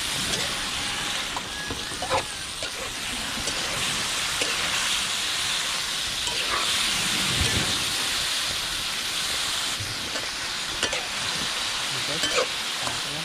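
Food frying in oil in a pan: a steady sizzle, with scattered clicks of a utensil stirring.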